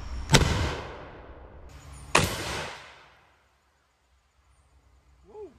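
Two loud blasts about two seconds apart, each trailing off over a second, from a 12-gauge double-barrel percussion muzzleloading shotgun firing a heavy charge of 105 grains of black powder behind nine 00 buckshot.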